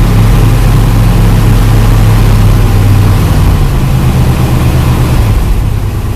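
Chevrolet El Camino's carbureted engine idling cold with no choke, a good steady idle; about three seconds in its pitch drops as the idle settles lower.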